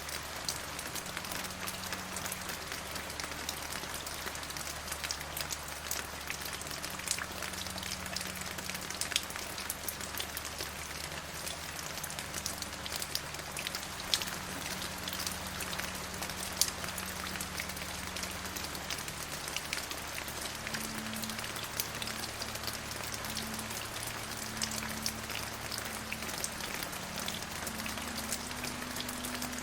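Steady rain falling, an even hiss dotted with many sharp, individual drop ticks.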